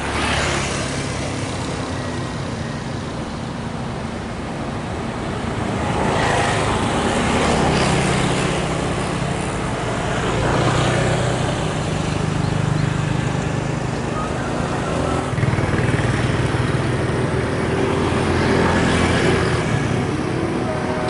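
Diesel engine of a Komatsu PC200 long-reach excavator running steadily, swelling louder several times as the machine works.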